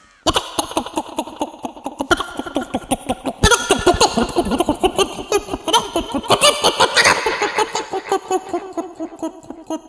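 A man imitating a flock of chickens with his voice: rapid, busy clucking and cackling, growing louder and denser about three and a half seconds in.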